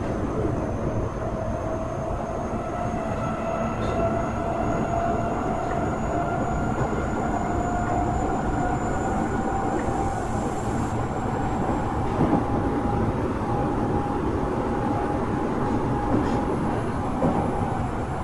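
Renewed Osaka Metro 23 series subway car heard from inside while running: a steady rumble of wheels on rail under the whine of its Hitachi IGBT inverter and traction motors. The whine rises slowly in pitch as the train gathers speed.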